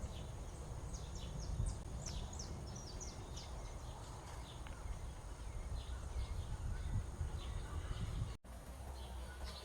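Wild birds giving many short, high chirps, thickest in the first few seconds and more scattered after, over a steady low rumble. The sound cuts out for an instant about eight seconds in.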